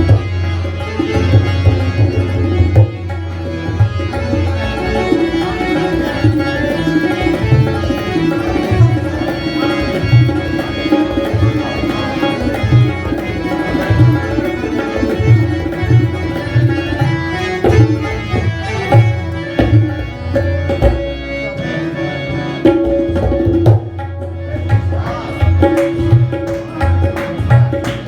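Instrumental passage of an Afghan song: tabla-style hand drumming keeps a steady rhythm under a held melodic line.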